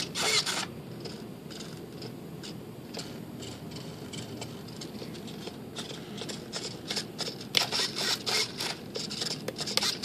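Small RC control-surface servos in a glider's fuselage whirring in short zipper-like bursts as the transmitter sticks are moved, coming thickest in the last few seconds.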